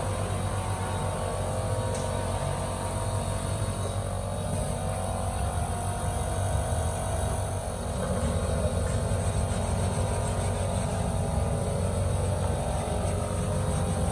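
A steady low mechanical hum, which dips briefly and comes back a little louder about eight seconds in.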